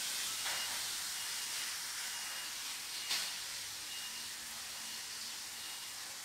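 Steady hiss with no words over it, and a single faint click about three seconds in.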